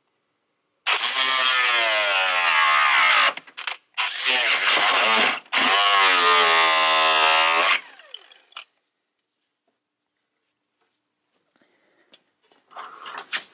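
Handheld power tool cutting into a plastic car bumper in three runs over about seven seconds, its whine dropping and rising in pitch as it works. Fainter scraping and handling noises follow near the end.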